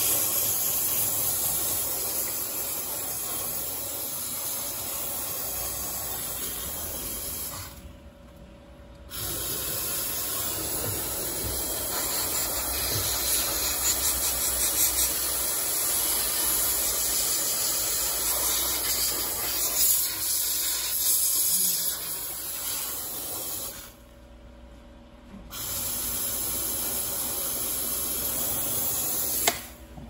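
Handheld steam cleaner blowing a jet of steam onto an iced-up refrigerator evaporator coil to melt the ice blockage: a loud, steady hiss that stops twice for a second or two, about eight seconds in and again near the end, then resumes.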